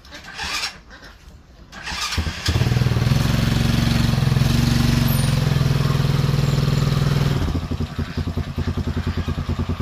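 Motorbike engine starts up about two seconds in and runs fast and steady, then drops to a fast pulsing idle near the end.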